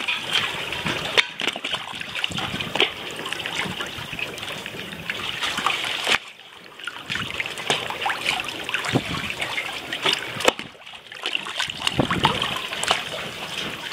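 Small irregular splashes and trickling of seawater at the surface as a hand dips into the water and a large fish takes food at the surface; the splashing eases off briefly twice.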